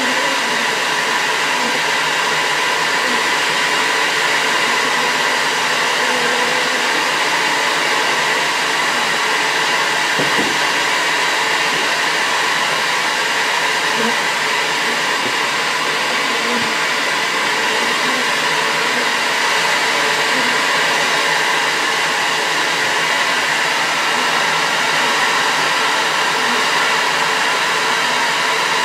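Bee vacuum running steadily, a motor whine over a rush of air as it sucks up bees.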